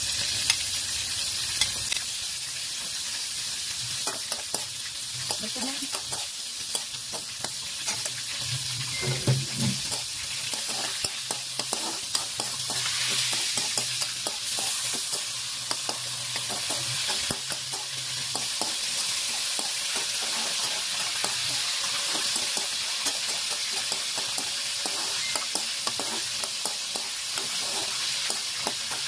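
Carrot slices and ginger strips sizzling steadily in hot oil in a wok while being stir-fried, with a metal spatula scraping and tapping against the pan.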